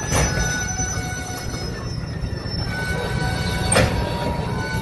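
Loaded freight tank cars rolling past at a grade crossing: a steady low rumble of wheels on rail with faint steady high squealing tones, and two sharp clanks, one right at the start and another near the end.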